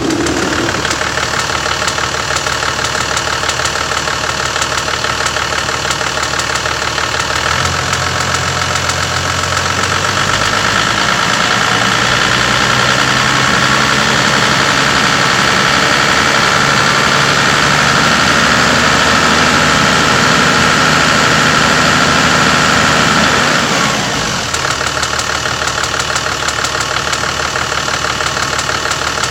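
Toyota Land Cruiser HDJ81's 4.2-litre straight-six turbo diesel running with a fast, regular tick or rattle from near the sump, the cause not yet found. The engine is raised above idle about seven seconds in and drops back to idle a few seconds before the end, the ticking going on throughout.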